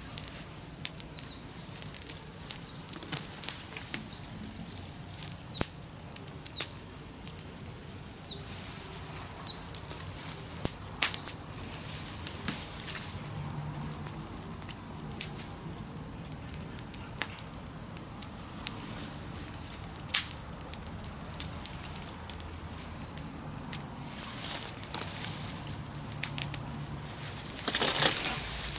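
Campfire wood crackling, with irregular sharp pops. Just before the end there is a louder rush of noise.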